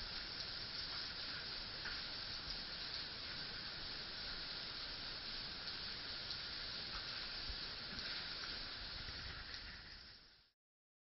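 Steady faint hiss with a few faint ticks, fading out about ten seconds in.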